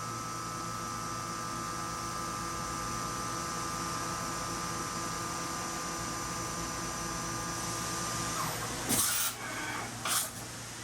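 Fanuc Robodrill α-T21iFLa CNC drilling and tapping machine's spindle running at high speed with a steady whine, which cuts out about eight seconds in as the tool is indexed. Two short, loud bursts of noise about a second apart follow from the tool change.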